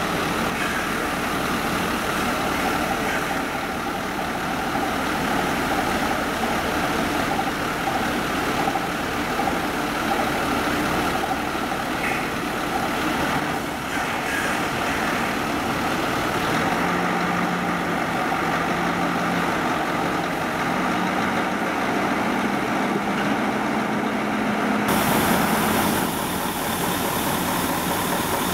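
Heavy-haul Mercedes-Benz tractor unit's diesel engine running at low speed as the truck creeps past pulling a heavy load of large tank sections. About two-thirds of the way through, a steady low drone comes up in the engine sound.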